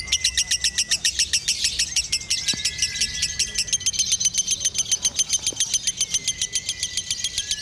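Lovebird chattering in one long, unbroken run of rapid high notes, about eight a second. This is the extended non-stop 'ngekek' chatter that Indonesian lovebird keepers call 'konslet'.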